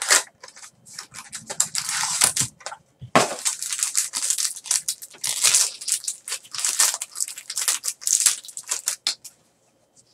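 Cellophane wrapping crinkling and tearing in the hands as a sealed trading-card box is unwrapped and opened: a dense run of sharp crackles that stops about nine seconds in.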